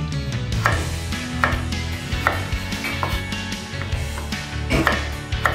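Kitchen knife slicing raw carrot and mango into thin lengthwise strips for pickle, a crisp cutting stroke roughly every second, over background music.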